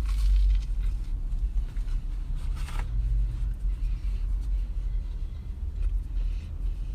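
Steady low rumble of a car idling, heard from inside the cabin, with two short noises, one at the start and one nearly three seconds in.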